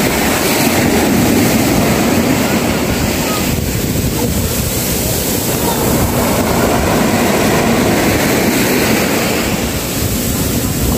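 Small sea waves breaking and washing up a sandy beach in foam, with wind noise on the microphone.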